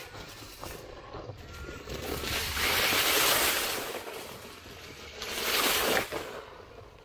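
Dry leaf litter crunching and rustling under the tyres of a Hosim 9125 RC monster truck as it tears through, flinging leaves and dirt. It swells loud twice, about two seconds in and again between five and six seconds, while the truck's dual 390 motors and metal gearing are barely heard.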